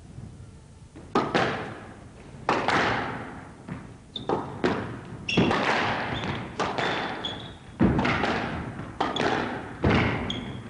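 Squash rally: the ball is struck by the rackets and smacks off the walls about once a second, each hit a sharp thud ringing in a large hall, with short high squeaks from the players' shoes on the court floor between hits.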